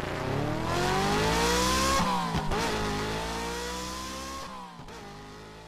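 Car engine revving as an intro sound effect. The pitch climbs for about two seconds, dips briefly, then rises slowly while fading away. A hiss runs over the first four seconds or so.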